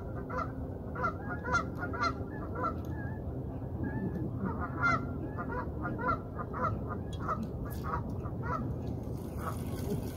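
Waterfowl calling over the water: a run of short repeated calls, about two or three a second, thinning out near the end.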